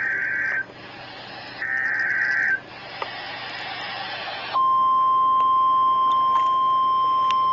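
NOAA Weather Radio emergency alert: two roughly one-second bursts of SAME digital header data, a harsh warbling screech, separated by radio static. About four and a half seconds in, the steady 1050 Hz warning alarm tone starts and holds, signalling that a warning, here a tornado warning, is about to be read.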